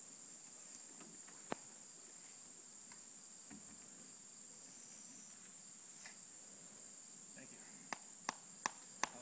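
Steady high-pitched chorus of crickets, with one sharp knock about a second and a half in and four quick sharp knocks near the end.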